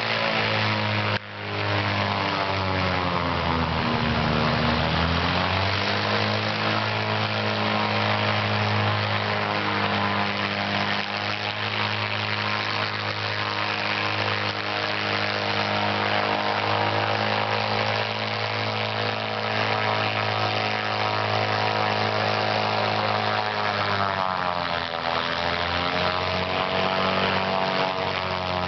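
Propeller engine of a small amphibious airplane running steadily as it taxis up from the water onto the grass. Its pitch dips and comes back up about four seconds in and again near the end as the throttle is eased.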